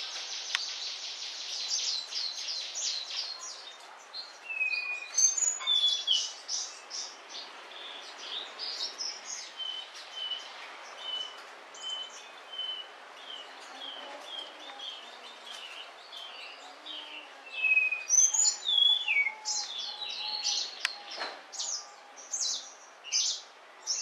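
Munias (emprit kaji) chirping: rapid high-pitched chirps mixed with short downward-sliding whistles and, about midway, a run of evenly spaced short notes, over a steady background hiss.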